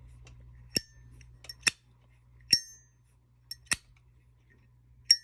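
Zippo lighter's hinged lid flicked open and snapped shut about three times: sharp metallic clacks, some with a brief high ping. The owner feels this one still needs some adjustment to its sound.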